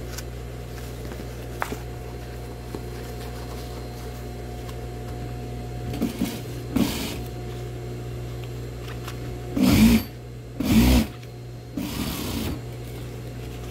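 Juki industrial sewing machine with its motor humming steadily, stitching in short runs: a few light runs about halfway through, then two louder runs a second apart about two-thirds of the way in.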